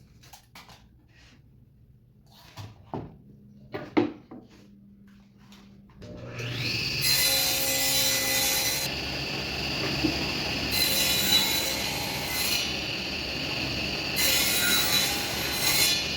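A few light knocks of wood being handled, then an electric power tool spins up about six seconds in and runs with a steady whine. It cuts into wood three times, each cut adding a louder hiss over the motor.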